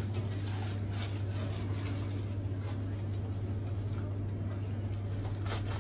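A steady low hum, with faint rustling and light knocks of a plastic bag being handled.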